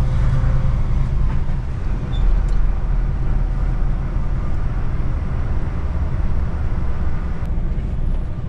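DAF lorry's diesel engine running, heard from inside the cab: a steady low rumble that swells briefly about two seconds in.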